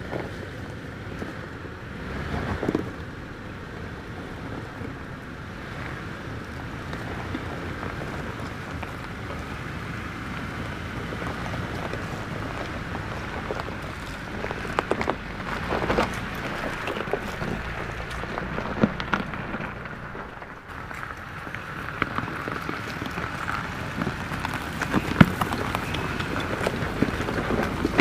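Toyota 4Runner crawling up a steep loose-rock hill: a steady rush of engine and tyres on rock, with sharp clicks and knocks of stones under the tyres that come thicker in the second half.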